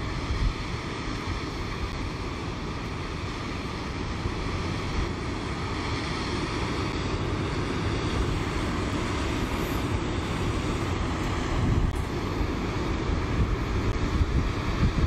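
Steady rush of a flood-swollen creek, with wind rumbling on the microphone.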